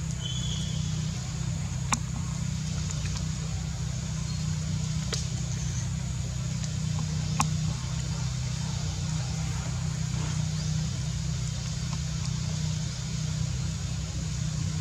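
A steady low motor hum, with a few sharp clicks.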